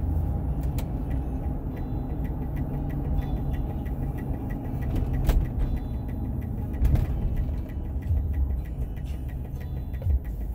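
Car driving, heard from inside the cabin: a steady low rumble of engine and road. There are two sharp thumps, about five and seven seconds in.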